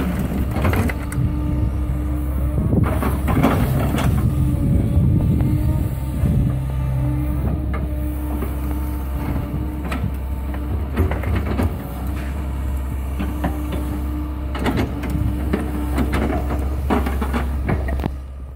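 Tracked excavator's diesel engine running under load with a whine that comes and goes as the hydraulics work the arm and bucket. Short knocks and thuds of soil and the bucket tipping into a site dumper's skip and digging.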